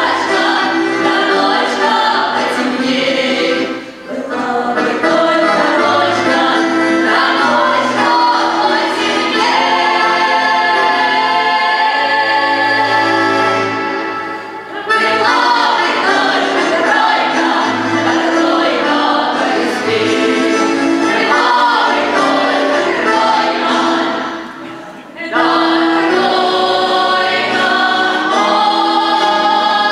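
A women's vocal ensemble singing a Russian song together in harmony, in long phrases with short breaks between lines about 4, 15 and 25 seconds in.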